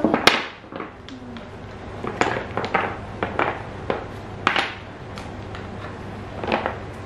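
Wooden Jenga blocks clacking against each other and the wooden tabletop as they are taken out of the box and dropped onto the pile: a scattered, irregular series of knocks, the sharpest just after the start.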